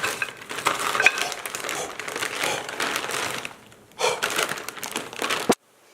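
A crinkly plastic bag being handled, crackling and rustling, with a short lull a little before four seconds in and then stopping abruptly.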